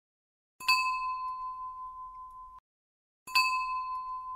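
Bell-like ding sound effect struck twice, about 2.7 seconds apart; each strike rings at one clear pitch with fainter higher overtones, fades, and is cut off sharply after about two seconds.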